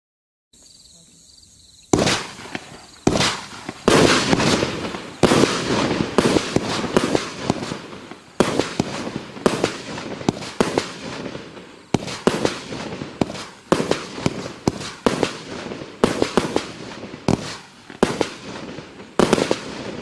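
Klasek Dum Bum 16-shot firework cake firing. A faint hiss comes first, then about two seconds in a rapid, irregular string of loud bangs begins and runs for roughly seventeen seconds.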